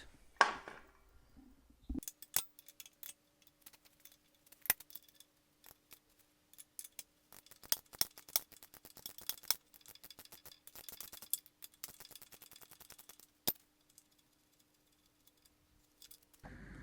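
Hand tools working on a motorcycle's rear suspension: metal clicks and clinks, with runs of rapid ratchet-wrench clicking as a nut on the swing arm pivot bolt is worked off.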